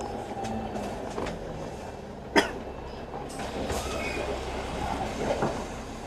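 Interior of an Alexander Dennis Enviro500 MMC double-decker bus on the move: a steady rumble from the engine and road, with scattered rattles and clicks. One sharp loud knock comes about two and a half seconds in, and a smaller knock near the end.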